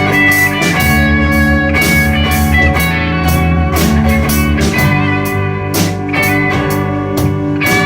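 Rock band playing an instrumental passage: sustained guitar notes over a bass line, with steady drum hits keeping the beat.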